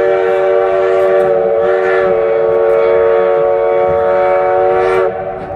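Train horn sounding one long, loud chord of several notes, cutting off about five seconds in.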